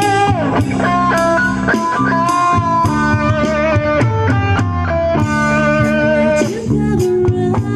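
Live band playing an instrumental passage: a guitar-led melody line with bends and vibrato over bass and drums.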